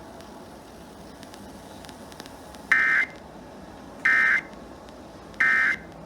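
Emergency Alert System end-of-message signal: three short, identical bursts of screeching digital data tones, about a second and a half apart, over steady broadcast hiss. They mark the end of the alert.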